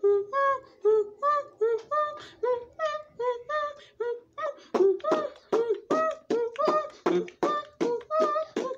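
Beatboxing: a steady rhythm of short, pitched mouth-made hits, about two to three a second, turning denser and sharper-edged from about halfway through.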